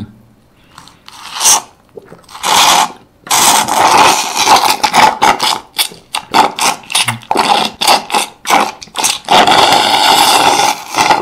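Loud slurping of pulpy blended pineapple and Sprite through a metal straw from a hollowed-out pineapple. It comes as a run of sucks, some long and some short.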